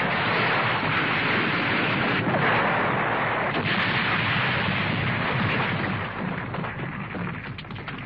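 Cartoon explosion sound effect: a long, dense rushing blast that holds steady for several seconds, then fades away, with a few sharp crackling clicks near the end.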